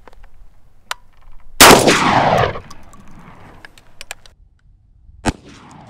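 A single shot from a Beretta A300 gas-operated 12-gauge semi-automatic shotgun about a second and a half in, ringing out and dying away over about a second. A sharp short knock follows near the end.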